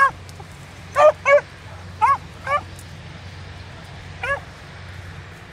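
Beagle giving tongue in short, high yelps, typical of a hound working a rabbit's scent line. The yelps come in quick pairs, the last one alone a couple of seconds later.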